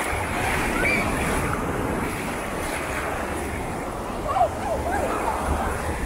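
Small waves breaking and washing up on a sandy beach, with wind rumbling on the microphone and a few brief distant voices about four to five seconds in.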